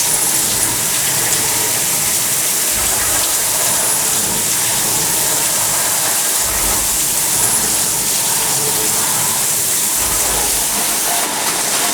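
SYIL X5 miniature CNC milling machine running a cut: a steady, loud hissing rush, with a brief high whine a few times.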